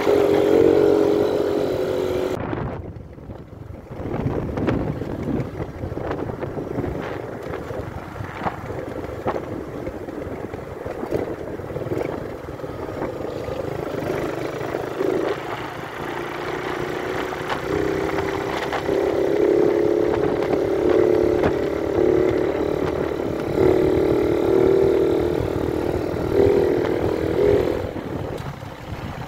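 Motorcycle engine running while riding, with road and wind rumble on the microphone. The engine drops away about three seconds in, then picks up and runs more strongly again in the last ten seconds.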